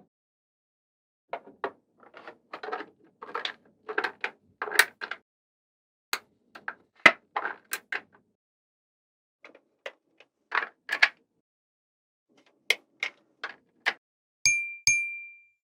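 Small magnetic balls clicking and clattering as they snap together, in quick clusters of sharp clicks separated by silent gaps. Near the end a brief high ringing tone sounds.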